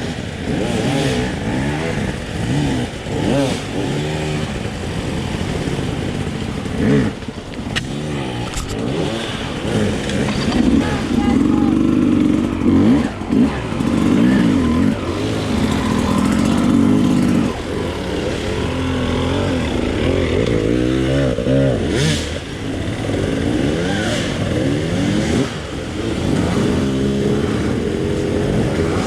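Enduro dirt bike engine revving up and down continuously as it is ridden over a rough trail, the pitch climbing and dropping with throttle and gear changes, with a few sharp knocks from the bike over the terrain.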